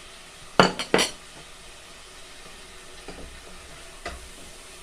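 Tomatoes, curry powder and chili powder sautéing in a pan: a few sharp knocks of a stirring utensil against the pan about half a second in, then a low steady sizzle with light scrapes of stirring.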